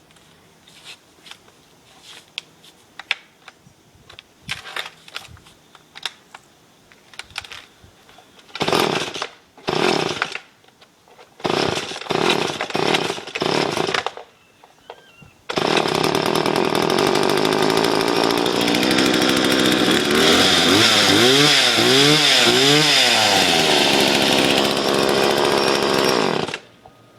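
McCulloch MS1635 35cc two-stroke chainsaw being pull-started: a run of clicks, then several short bursts as it catches and sputters, then it starts and runs steadily. It is revved up and down several times in the middle, then cuts off suddenly near the end. It runs now that the carburettor has been cleaned and fresh fuel put in.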